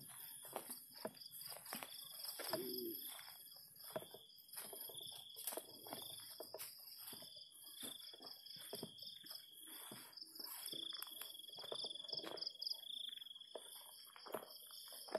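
Night insects trilling steadily in long high-pitched stretches, over the irregular rustle and crunch of footsteps pushing through grass and undergrowth.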